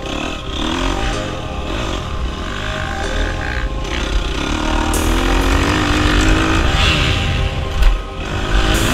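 Dirt bike engine revving up and down several times as it rides, over background music with a heavy beat.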